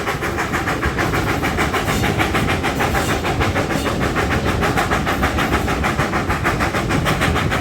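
GWR Manor class two-cylinder 4-6-0 steam locomotive 7828 Odney Manor working hard at speed, its exhaust beating rapidly and evenly over the rumble of the train.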